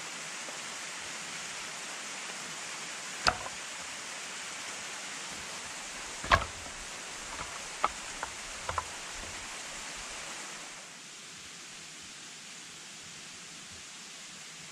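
Short lengths of firewood knocking together as they are picked up and stacked: a few sharp wooden clacks, loudest about six seconds in, over the steady rush of a mountain stream. The rush drops a little quieter about eleven seconds in.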